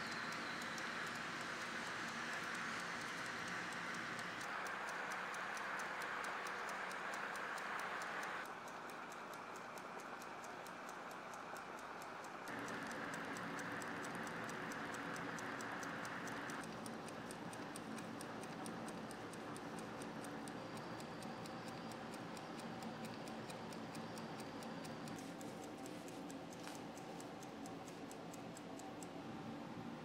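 Mechanical wind-up kitchen timer ticking steadily and evenly as it counts down, over a steady hiss.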